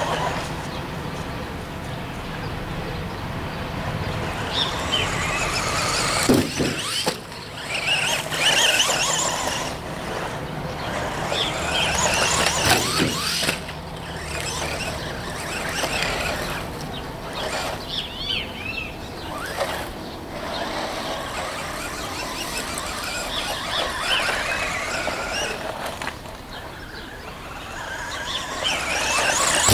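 WLtoys L959 RC buggy's electric motor whining, its pitch sweeping up and down again and again as the car speeds up and slows, with a couple of sharp knocks along the way.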